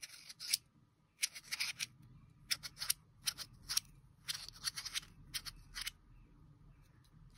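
Small toy's packaging being opened by hand: a series of short, sharp rustles and snips at an irregular pace.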